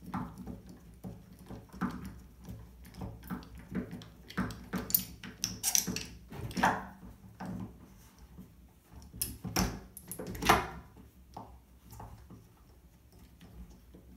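Irregular clicks and scrapes of doorknob hardware being handled as its mounting screws are turned out by hand, with louder scraping strokes about halfway through and again about two-thirds of the way through.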